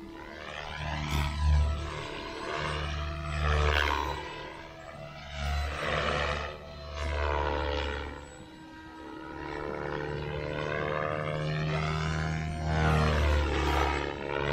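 Radio-controlled Oxy 5 helicopter flying fast passes. Its motor and rotor whine swings up and then down in pitch with each swoop past, swelling louder several times.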